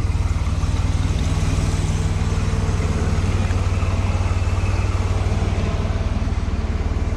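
The Nissan-based rock crawler's engine running steadily, a constant low rumble with no change in revs.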